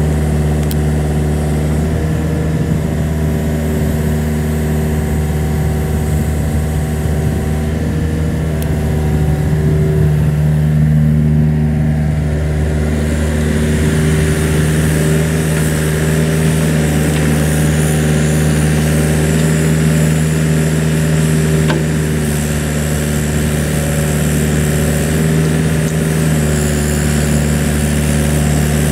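2003 Kobelco SK45SR-2 mini excavator's diesel engine running steadily under hydraulic load while the upper structure swings and the boom and arm move. Its pitch dips and recovers slightly a few times.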